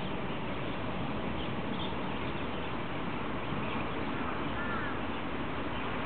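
Steady outdoor background noise, with a few faint, short bird chirps about four and a half seconds in.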